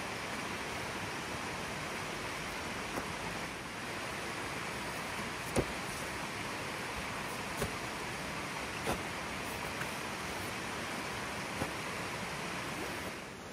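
Steady rushing outdoor background noise, with a few short, sharp clicks and knocks of camping gear being handled at a motorcycle's soft saddlebags.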